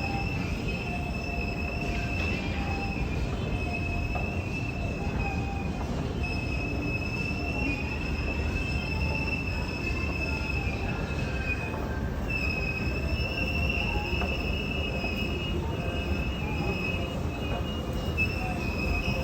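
A steady low rumble under a sustained high-pitched squeal, like metal wheels squealing. The squeal drops out briefly about six, twelve and eighteen seconds in, then resumes.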